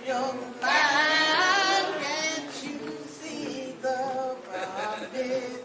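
Several voices singing together, like a chant. One high voice with a strong vibrato stands out loudest from about a second in.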